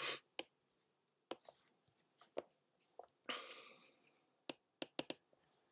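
Faint, scattered taps and clicks of a stylus on a tablet's glass screen, with a short soft hiss a little after three seconds in.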